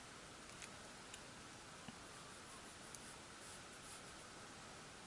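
Near silence: faint steady hiss with a few faint ticks and scratches from a sponge applicator rubbing PanPastel pigment across paper.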